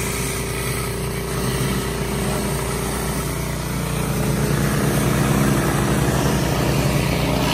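Pressure washer running steadily, with the hiss of water jetting from a Kärcher rotary surface cleaner onto wet concrete; a little louder in the second half.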